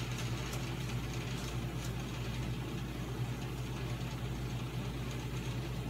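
Steady low machine hum that runs unchanged, with a few faint light clicks of spoons and scoops against the batter bowl and cupcake pans.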